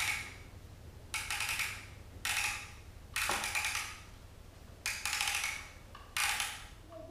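Plastic toy pieces and their packaging being handled: a string of short, sharp rustles, roughly one a second.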